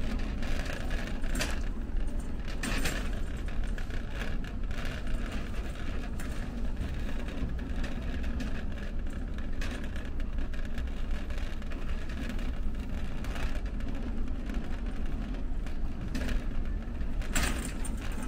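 Steady low hum and rumble of a large warehouse store's ambience, with a few brief clicks and clatters, the sharpest one near the end.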